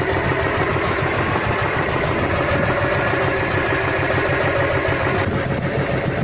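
Engine of a bangka (outrigger fishing boat) running steadily, with an even low pulse.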